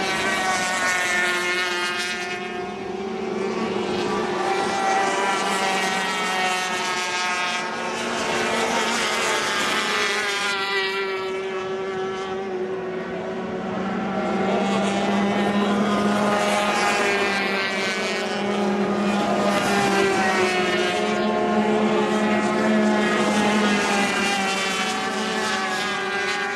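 Two-stroke racing outboard engines of 350cc-class powerboats running at high revs, several at once, their pitch drifting up and down as the boats pass and turn.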